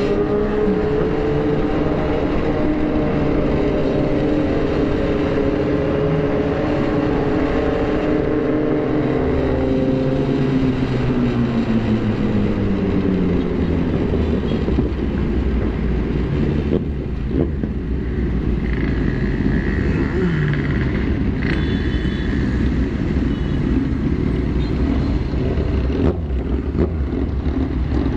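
On-board motorcycle engine, its note dropping steadily in pitch over the first dozen seconds as the bike slows, then settling into a low steady rumble under road and wind noise as the group rolls to a stop.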